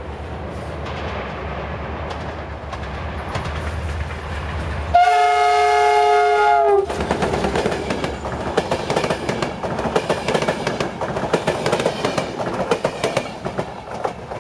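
An approaching train rumbles low, then its locomotive sounds a loud multi-tone horn for almost two seconds about five seconds in. The horn cuts off sharply, and the passing carriages clatter, their wheels clacking over the rail joints.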